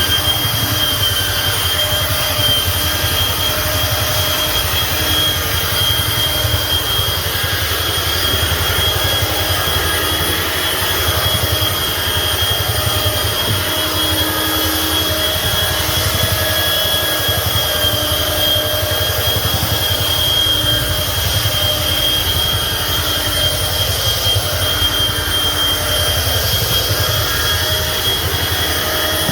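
Rotary floor buffer running steadily with a screening pad, abrading the worn polyurethane finish of a hardwood floor: a constant motor hum with a steady high whine over it.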